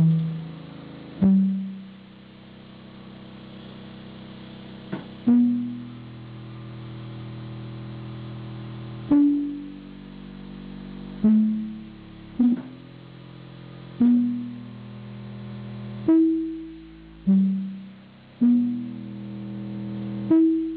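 A slow tune of single low plucked notes, each struck sharply and dying away, about one every two seconds, played through a bass speaker.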